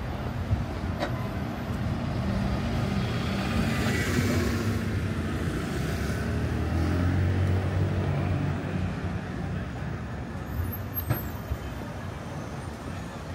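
Road traffic passing along a street: car engines and tyres, with one vehicle's engine rumble loudest about halfway through and then easing off.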